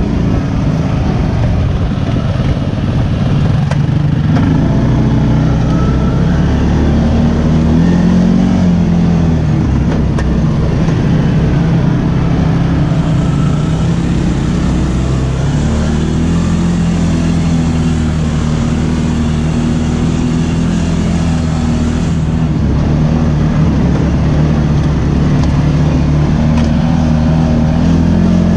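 ATV engine running while riding, its pitch rising and falling with the throttle.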